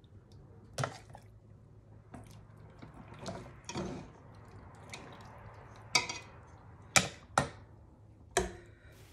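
Metal spoon scraping and knocking against a stainless steel pot as saucy chunks of chicken are spooned through a canning funnel into a glass jar, with wet plops of meat and sauce. A scattering of separate clinks, the sharpest about six and seven seconds in.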